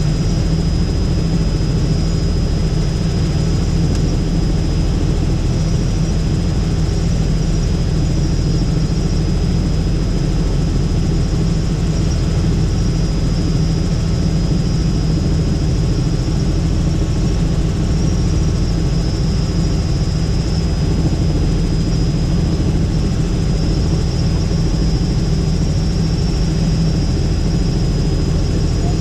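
Robinson R66 turbine helicopter running steadily, heard from inside the cabin: a dense low rotor and engine drone with a thin, steady high whine above it.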